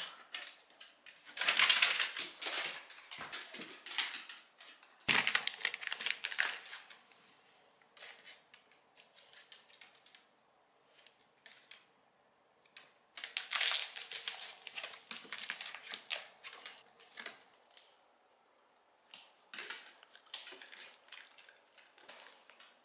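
Plastic snack bag crinkling as it is handled, in four separate bouts of rustling with quiet gaps between them.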